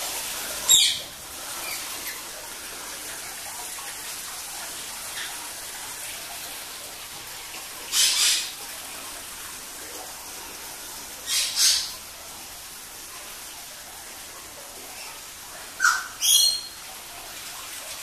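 Pet parrots squawking in short harsh calls: one squawk about a second in, then three pairs of squawks spread over the rest, with a steady faint hiss underneath.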